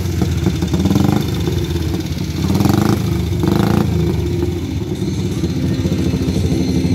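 Vintage vehicle engine running close by, its revs swelling briefly a few times.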